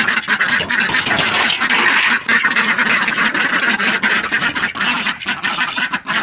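A flock of ducks, a mallard-type drake among them, quacking together in a loud, continuous din of many overlapping calls.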